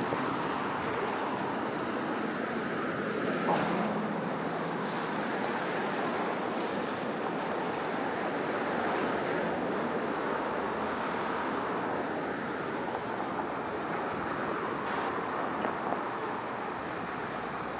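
Steady outdoor city ambience: an even wash of distant road traffic.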